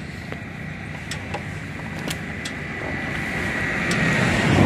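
Motorcycle engine running at low road speed, with wind on the microphone and a few light clicks; the engine noise swells louder near the end.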